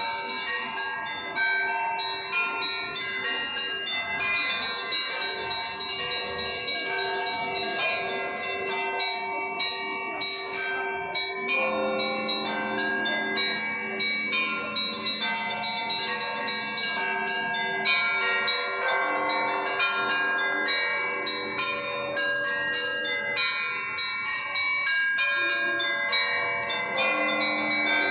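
Orthodox church bells ringing a continuous peal: many bells struck in quick, overlapping succession, their tones ringing on into each other. A deeper bell joins in about twelve seconds in.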